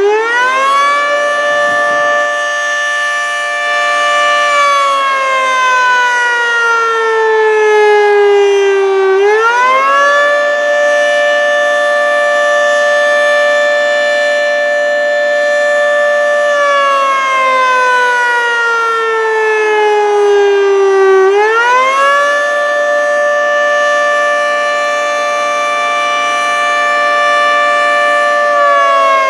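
Federal Signal 3T22A outdoor warning siren sounding its weekly test in a slow wail. It sounds several tones at once: it holds at full pitch, glides slowly down, then winds back up. This happens twice, and it starts falling again near the end.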